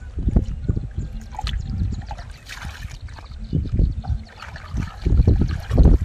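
Hands groping and splashing in shallow muddy water and soft mud: irregular sloshing and squelching strokes, louder and busier in the last two seconds.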